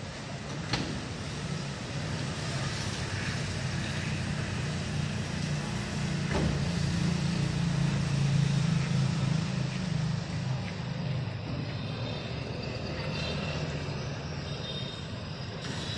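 Steady urban road traffic, with a vehicle engine's low hum swelling to its loudest about halfway through and then easing off; a couple of brief clicks.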